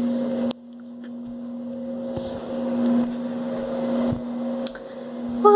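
A steady low mechanical hum, like a motor running, with rustling noise that swells and fades. There is a sharp click about half a second in and another near the end.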